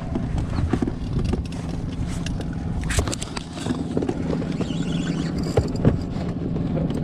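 Sharp handling knocks and thumps on the camera and the boat, loudest about three and six seconds in, over the steady low hum of an outboard motor idling.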